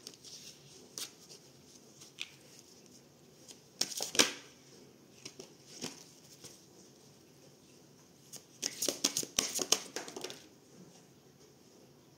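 A deck of oracle cards being shuffled and handled: scattered soft card clicks, a short burst of card snaps about four seconds in, and a longer run of quick riffling snaps from about eight and a half to ten and a half seconds in.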